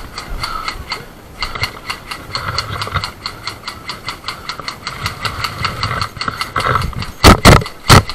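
Footsteps crunching on a gravel path, with the player's gear and rifle rattling at each step. Near the end come three loud, sharp knocks in quick succession as the rifle is brought up to the shoulder.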